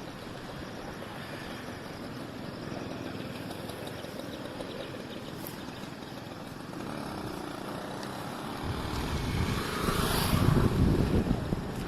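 Steady rush of flowing floodwater from an overflowing lake; from about nine seconds in, a heavier low rumble of wind buffeting the microphone.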